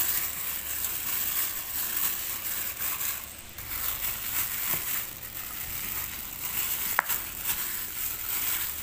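Plastic bag worn as a glove crinkling and squishing as a hand kneads mashed potato in a stainless steel bowl, with a short sharp click about seven seconds in.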